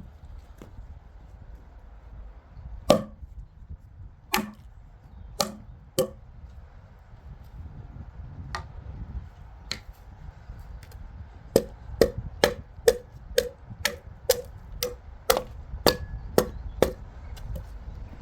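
Restored broad axe chopping into wood: a few scattered strikes, then a steady run of about two strikes a second in the second half.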